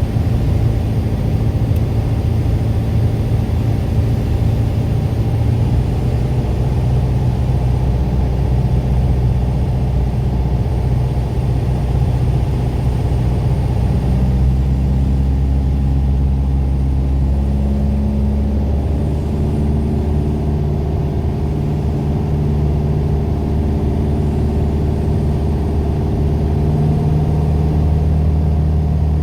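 Light aircraft's four-cylinder piston engine and propeller droning steadily, as in a Piper PA-28 Warrior, its pitch shifting a few times.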